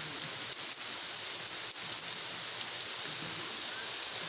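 Steady rain falling, an even hiss with a few light drop taps close by.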